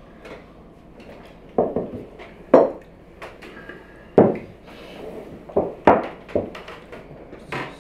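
Ceramic serving bowls and plates being set down on a table: a series of irregular clinks and knocks, about seven or eight in all.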